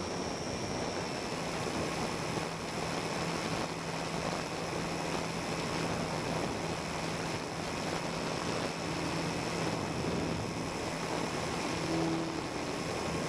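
Steady drone of a radio-controlled model aircraft's motor and propeller, picked up by the camera riding on it, under a constant rush of wind noise.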